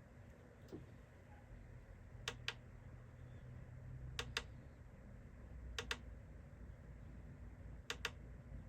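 Four double clicks from a small button or switch being pressed and released, roughly every two seconds, over a faint low hum.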